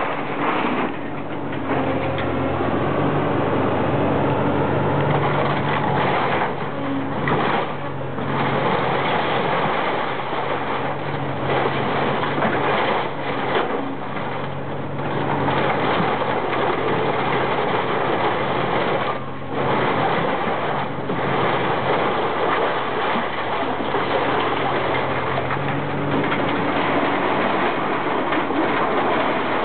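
Komatsu PC300LC-6L excavator's diesel engine running under hydraulic load, its note rising and easing as the boom and grapple work, over steady clattering and crunching of scrap metal being gripped and shifted in the pile.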